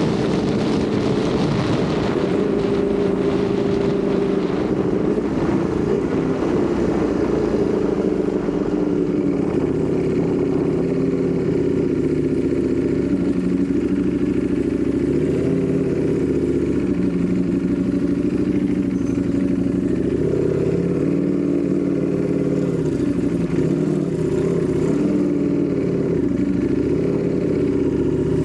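Ducati Panigale V4 motorcycle's V4 engine heard from onboard while riding, its pitch rising and falling with throttle and gear changes. Wind noise is heavier in the first few seconds.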